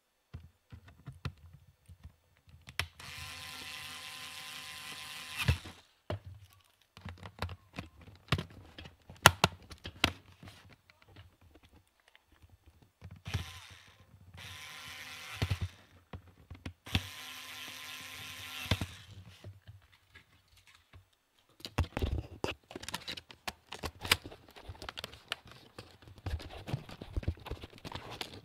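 Small electric screwdriver running in short bursts of one and a half to two and a half seconds, driving laptop case screws, with clicks and clatter of small parts and the tool being handled between runs.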